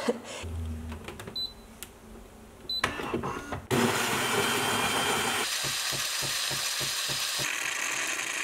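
Philips automatic espresso machine: a few clicks as its touch panel is pressed, then from about three and a half seconds in it runs with a steady whir and hiss as it froths milk and pours it into a cup, pulsing rapidly for a couple of seconds in the middle.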